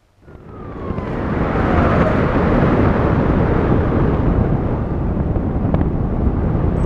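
Wind rushing over the microphone of a camera riding on an RC airplane in a climb, building up over the first two seconds and then steady. A faint tone slides down in pitch during the first two seconds.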